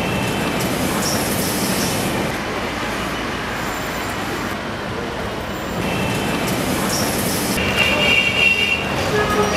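Busy road traffic: a steady din of engines and tyres, with vehicle horns sounding briefly a couple of times and a longer horn blast near the end.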